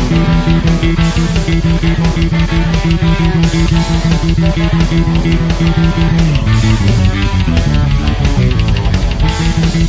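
Hard rock music: electric guitar over bass guitar and a steady, driving beat, with the bass note dropping lower about six and a half seconds in.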